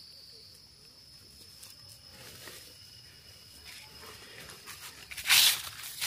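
Faint steady high insect drone, then about five seconds in a brief loud rustle of leaves and undergrowth.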